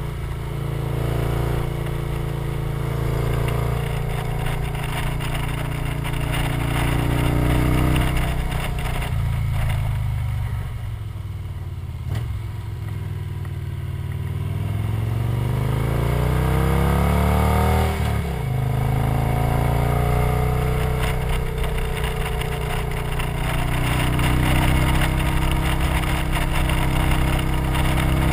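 Victory touring motorcycle's V-twin engine running under way, with wind noise. Midway its note falls as it slows for a bend, then climbs steadily for several seconds as it pulls out and drops suddenly at an upshift, then runs steadily again.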